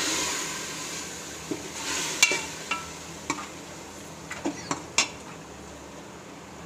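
Metal ladle stirring chicken pieces frying in oil and masala in an aluminium pot. A sizzle fades over the first couple of seconds, then come several scrapes and clinks of the ladle against the pot, the sharpest about two and five seconds in.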